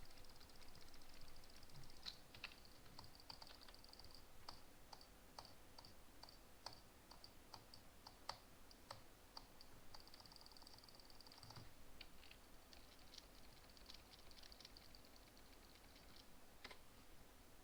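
Faint clicking: runs of rapid, even ticks broken up by separate sharp single clicks.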